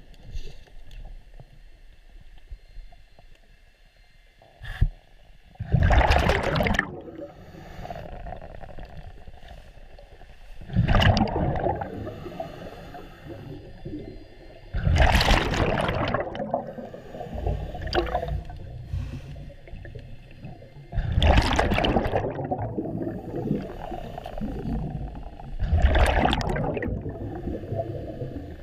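Scuba diver breathing underwater through a regulator: five loud rushes of exhaled bubbles, roughly one every five seconds. A short sharp knock comes about five seconds in.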